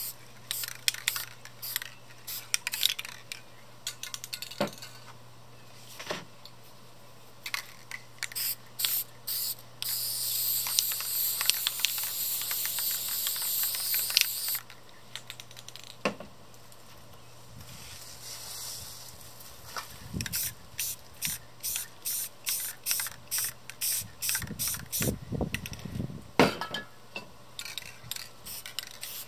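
Aerosol spray paint cans (Rust-Oleum American Accents) hissing in many short sprays mixed with sharp clicks. About ten seconds in comes one steady spray lasting about four seconds. Near the end there is a quick rhythmic run of short bursts, about two or three a second.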